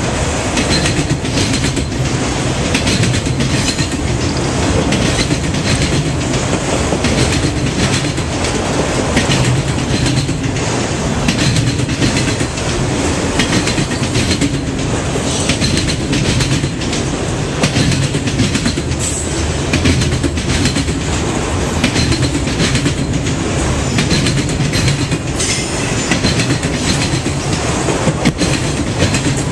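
Freight train of enclosed autorack cars rolling past close by: a steady rumble of wheels on rail, with frequent clicks and clatter as the wheels cross rail joints.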